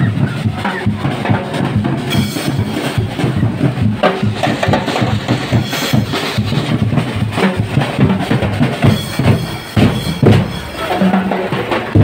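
Drums and percussion playing a steady beat.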